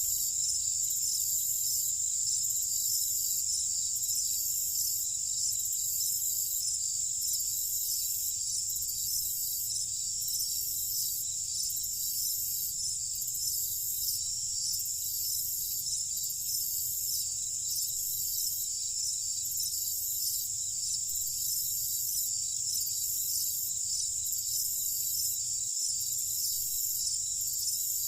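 Summer-night insect chorus: crickets trilling steadily and high-pitched, with a second, higher insect call pulsing about once a second over it.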